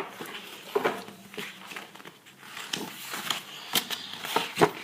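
Scattered light clicks and taps of small plastic toy pieces being handled, with one sharper knock near the end.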